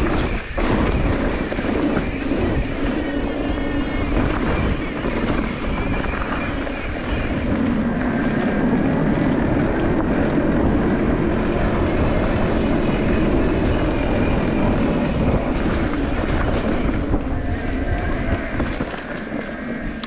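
Mountain bike riding over rough, rocky ground: steady wind rumble on the camera microphone mixed with constant rattling and knocking of the bike. It eases off slightly near the end.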